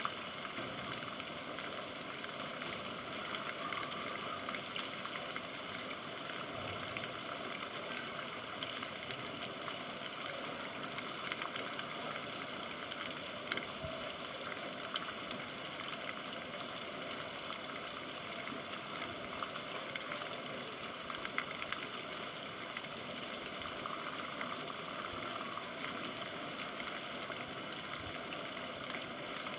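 Steady rain: an even hiss of many small drops striking a surface, with fine patters scattered through it and no change in strength.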